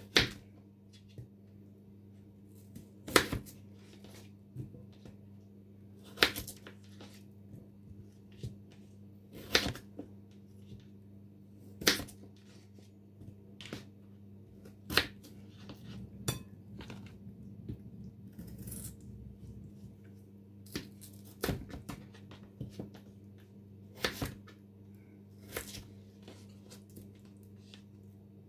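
Knife cutting raw potatoes into wedges, each cut ending in a sharp knock, about every two to three seconds, over a steady low hum.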